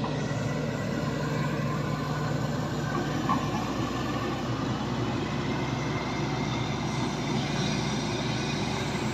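Shantui excavator's diesel engine running steadily under working load, with one short knock about three seconds in.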